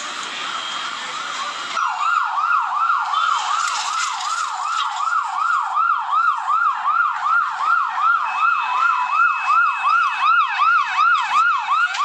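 Emergency vehicle siren on a fast yelp, its pitch sweeping up and down about three times a second. It comes in loud and clear about two seconds in, after a noisier start, and a steady higher tone joins it in the second half.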